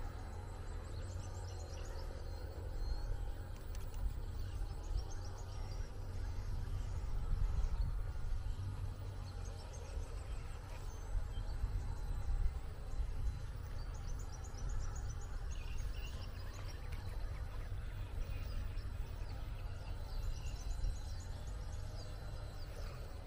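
Outdoor ambience: a steady low wind rumble on the microphone, with birds chirping in short, quick high trills that come and go every few seconds.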